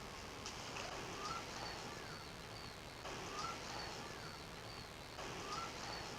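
Faint scratching of drawing or colouring on paper, in three stretches of strokes with small squeaks.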